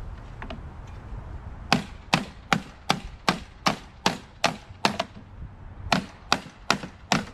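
A hammer striking repeatedly, a steady series of sharp knocks about two and a half a second, starting nearly two seconds in with a short break after about five seconds; typical of tapping out a stuck bolt or part.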